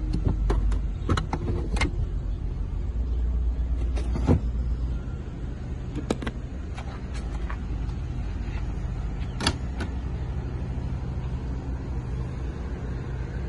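Power-closing trunk lid of a 2012 Mercedes-Benz E250 sedan, shut from the button on the lid: a low electric motor hum with scattered clicks, and a sharp click about two-thirds through.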